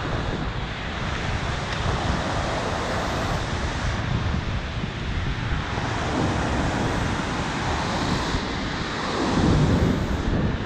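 Glacial meltwater torrent rushing out from under the ice as a steady wash of white water. Wind buffets the microphone, gusting hardest near the end.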